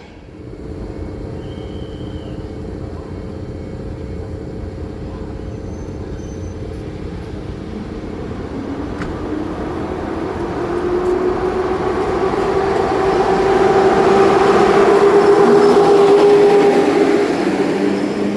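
EP07 electric locomotive hauling an Intercity train past the platform. It grows steadily louder to a peak a few seconds before the end, with a steady electric hum that rises slightly in pitch, then begins to ease off.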